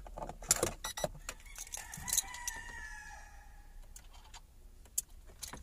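Car keys jangling and clicking in the ignition switch as the key is turned to accessory to power up a newly wired ETC unit. A rooster crows once in the background for about a second and a half, around two seconds in.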